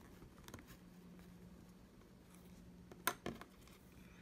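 Faint handling sounds as a hole is poked through a cloth bandana: a light click about half a second in and two sharp clicks just after three seconds, over a steady low hum.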